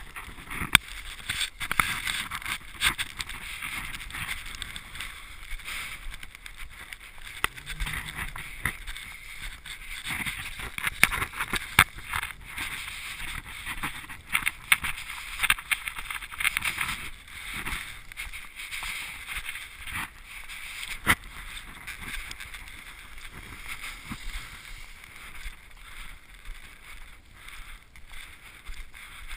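Steady hiss of wind and falling snow on the microphone while walking through snow, with frequent irregular knocks and crunches.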